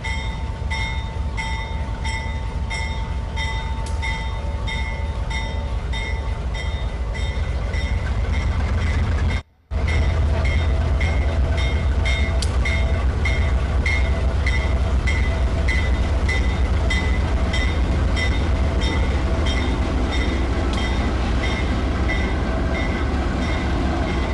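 Diesel-electric freight locomotives rolling past at low speed: a loud, steady low engine rumble with a regular quick ticking over it. The sound cuts out for a moment about nine and a half seconds in.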